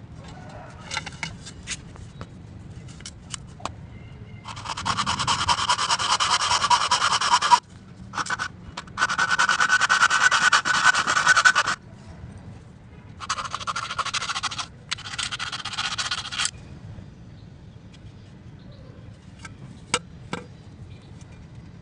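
Hand hacksaw cutting through PVC pipe: fast back-and-forth sawing strokes in several bouts of a few seconds each, with short pauses between. A few light clicks come before the sawing, and one sharp tap near the end.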